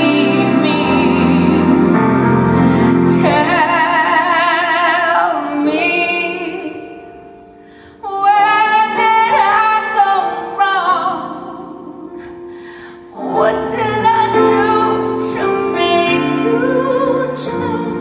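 A woman singing over instrumental accompaniment, holding notes with a wide vibrato. Her phrases are separated by two short lulls, and she comes back in strongly about a second after 13 s.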